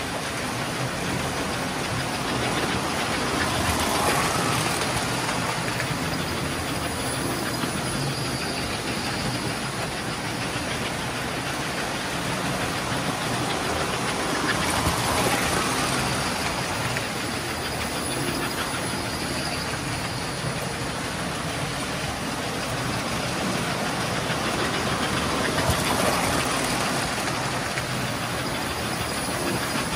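Several electric toy trains running at once on three-rail metal track: a steady whirring rumble of motors and wheels on rail, swelling three times as a train passes close by.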